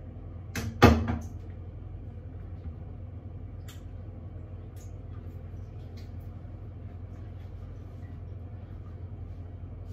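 A bowl set down with one sharp knock on top of a washing machine about a second in, followed by a few faint knocks as a plastic basin is picked up and handled, over a steady low hum.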